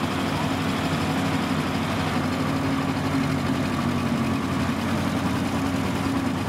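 Vintage tractor engine running steadily, driving a Dechentreiter threshing machine by a flat belt, with the threshing machine running along with it.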